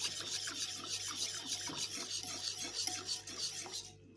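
Whisk beating a runny yogurt, water and spice mixture in a bowl: quick, even scraping strokes, about four to five a second, stopping near the end.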